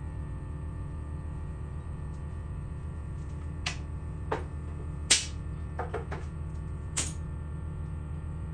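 Steady low machine hum with five or six sharp clicks and knocks between about three and a half and seven seconds in, the loudest about five seconds in.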